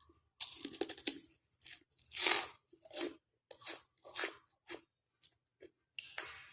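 Close-up mouth noises of someone eating bakso meatball soup. A quick clicky run comes about half a second in, then a string of short separate bursts about every half second.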